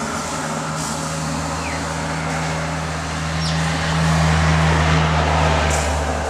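Hot umu stone sizzling and bubbling in coconut-cream sauce in a wooden bowl as it is stirred. Under it runs a steady low engine-like hum that grows louder about four seconds in.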